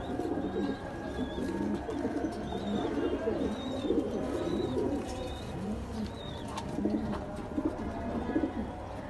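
Fancy pigeons cooing over and over, each coo a low call that swells and falls. Faint high chirps sound behind them.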